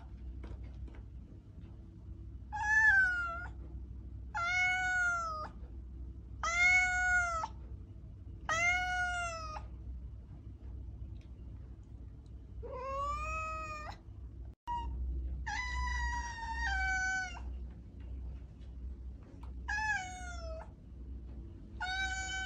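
Domestic cat meowing over and over, about eight separate meows a couple of seconds apart, each falling in pitch at its end, with a couple of longer, drawn-out ones midway.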